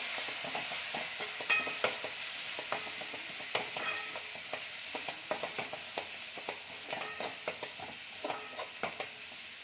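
Onion, ginger-garlic and spice-powder masala sizzling in oil in a pan as it is stirred, with the frequent clicks and scrapes of the stirring utensil against the pan.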